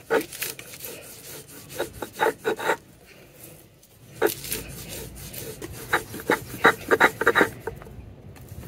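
Egusi melon seeds ground by hand on a rough grinding stone: quick rasping strokes of the hand stone rubbing over the seeds and the base stone, in bursts, with a short pause about three seconds in.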